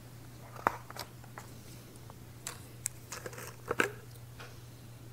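Quiet room tone: a steady low hum with a few scattered small clicks and rustles.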